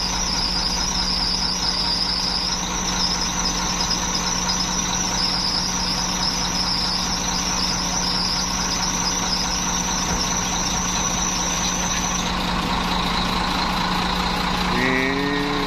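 Dump truck's diesel engine idling steadily, with a high-pitched whine over it that stops about twelve seconds in. Near the end there is a brief rising tone.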